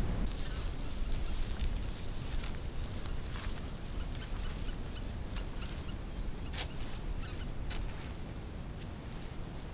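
Geese calling in the distance: short, scattered honks throughout, over a steady low rumble of wind on the microphone.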